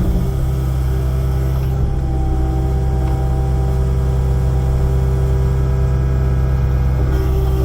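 Kubota excavator's diesel engine running steadily.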